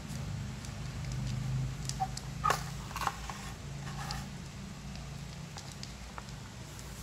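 Cats crunching dry kibble from a plastic bowl: scattered crackly clicks of chewing, with a louder cluster about two to three seconds in, over a low steady hum.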